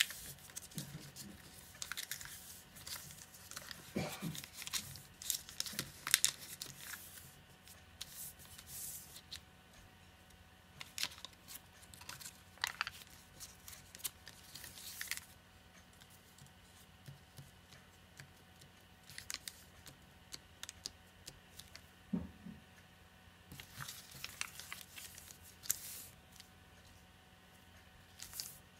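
A sheet of origami paper being folded and creased by hand: irregular rustles, crinkles and short sharp scrapes as fingers press folds flat and slide the paper over a cutting mat, with a couple of quieter pauses midway.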